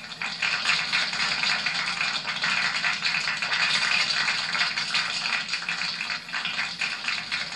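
Applause from a crowd, many hands clapping unevenly, growing a little fainter near the end.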